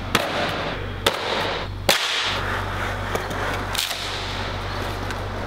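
Skateboard impacts: four sharp cracks of a board striking the ground, over a steady low hum.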